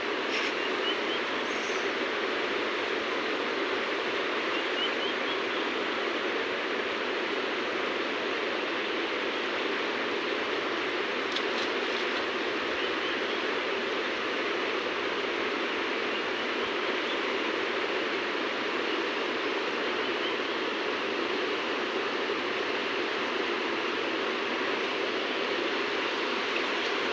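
Steady rush of flowing river water, with a few faint high chirps over it.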